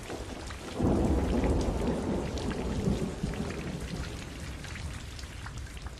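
Rain falling, with a low rumble of thunder that swells about a second in and slowly fades away.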